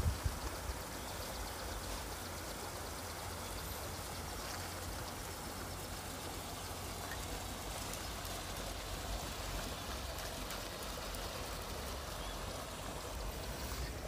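Steady outdoor rushing noise with a low rumble of wind on the microphone.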